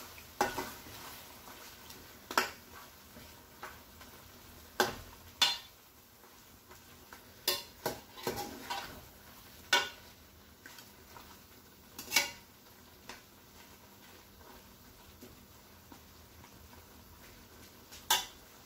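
A metal spoon stirring chicken curry in an aluminium pot. It scrapes and clinks against the pot's sides at irregular moments, about nine sharp knocks, over a faint sizzle of the chicken frying in ghee.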